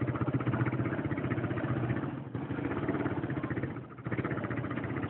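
Small motorcycle engine running steadily under throttle, easing off briefly twice, about two and four seconds in.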